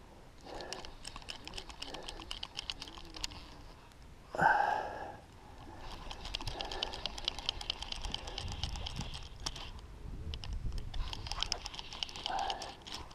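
Fly reel's click mechanism ticking rapidly in three runs as line is cranked in against a hooked striped bass. A brief loud sound about four seconds in.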